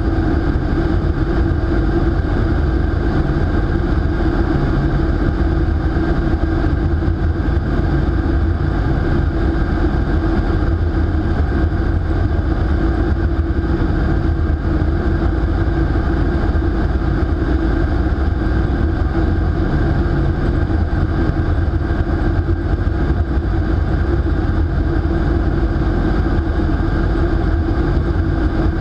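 Indoor vertical wind tunnel running at flying speed: a steady, unbroken roar of rushing air and fans with a deep rumble and a steady hum, heard from inside the flight chamber.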